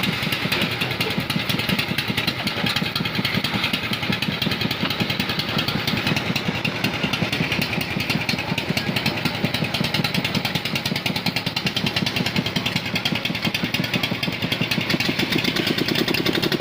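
A small engine running steadily with a fast, even pulsing beat.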